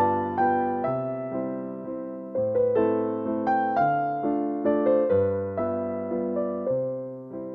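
Background music: a slow melody of struck notes, each one fading away, over held bass notes.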